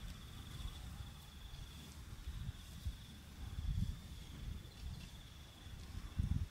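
Wind buffeting the microphone in uneven gusts, strongest around the middle and near the end, over a steady high-pitched insect trill.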